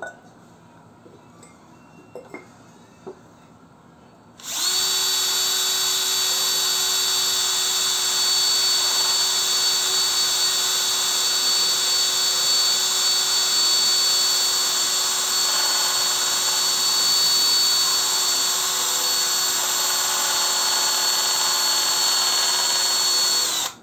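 Bosch Professional drill running at steady speed as its bit bores a hole through the base of a terracotta clay pot. It starts about four and a half seconds in, after a few light knocks, holds an even whine, and cuts off sharply near the end.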